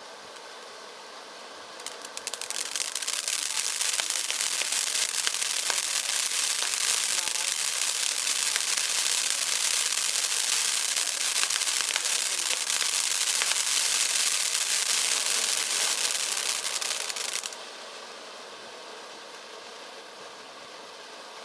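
Sky Painter 'Magic Show' firework fountain lighting about two seconds in, then spraying with a loud steady hiss and dense crackling for about fifteen seconds before cutting off sharply.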